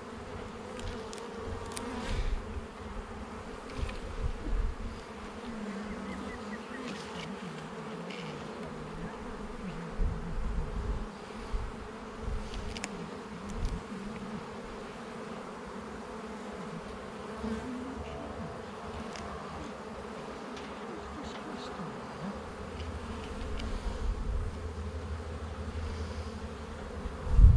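Honeybees buzzing steadily around an open hive as the frames are inspected, with a few short low bumps from handling or wind.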